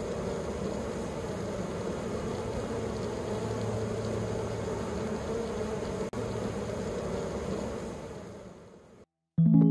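A honey bee swarm clustered on a branch, buzzing as a steady, dense hum that fades out near the end.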